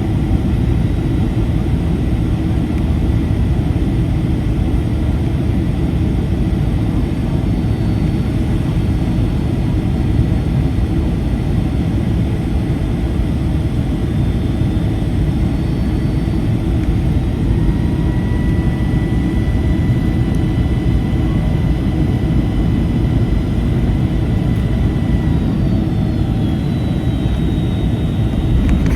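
Cabin noise inside a Boeing 757-300 on approach: a steady deep rumble of airflow and its Rolls-Royce RB211 engines, with faint thin whines that shift in pitch in the later seconds.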